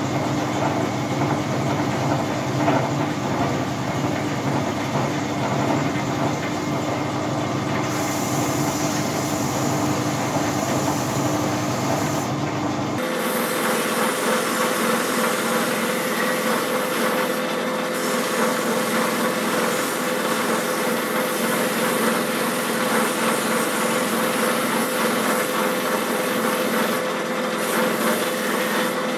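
Electric buffing motor running steadily with a cloth buffing wheel, a metal dish part held against the spinning wheel for polishing: a steady hum over a rushing hiss. About halfway through, the hum shifts abruptly to a higher pitch.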